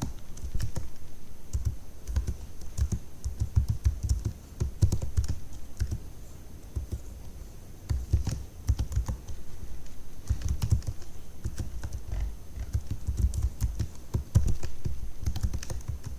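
Typing on a computer keyboard in quick runs of key clicks, with short pauses about six and twelve seconds in.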